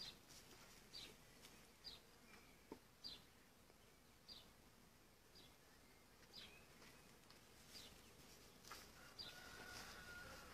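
Faint bird chirping: short single chirps about once a second, with a faint buzz near the end.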